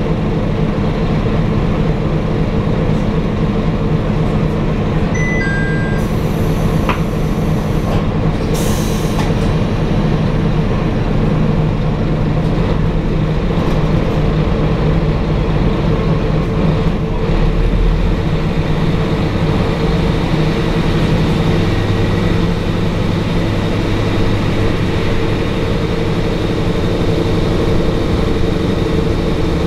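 Diesel railcar's engine idling at a station, with a short falling two-note chime about five seconds in and a hiss a moment later. Then the engine note rises and shifts as the train pulls away and picks up speed.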